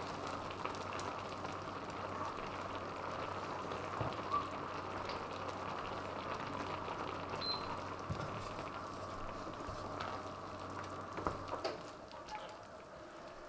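Cream sauce with pork strips and mushrooms bubbling steadily as it simmers in a wide pan, with condensation from the just-lifted lid dripping back in at the start. Near the end a wooden spoon stirs it, with a few soft knocks.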